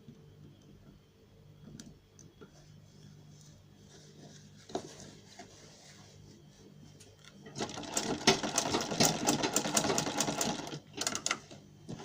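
Sewing machine stitching an invisible zipper in one fast run of about three seconds, starting past the middle. It is preceded and followed by a few faint clicks over a low steady hum.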